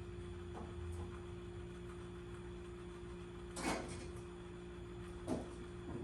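Two short knocks, a second and a half apart, the first a little longer and louder, over a steady low electrical hum.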